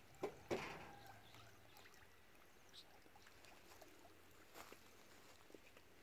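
Fish splashing at the surface of a feeding pond: two short sharp splashes about a quarter and half a second in, the second trailing off briefly, then near-quiet water with a few faint ticks.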